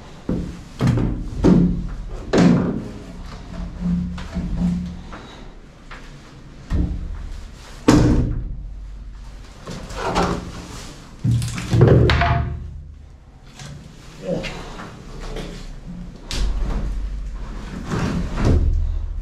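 Heavy chunks of a rotten wooden stringer beam knocking and thudding against the boat's hull as they are wrestled out, a dozen or so irregular thumps.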